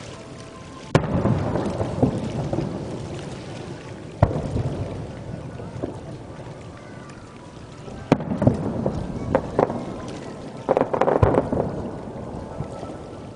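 Aerial fireworks shells bursting: four deep booms about three to four seconds apart, each trailing off in a long rolling rumble, with a few smaller pops and crackles among them.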